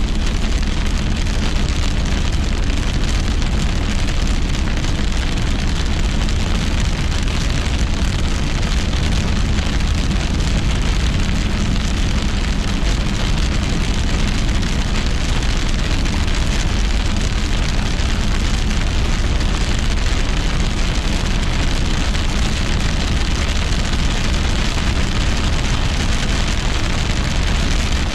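Heavy rain pelting a car's roof and windshield, with a steady low drone of tyre and road noise, heard from inside the moving car.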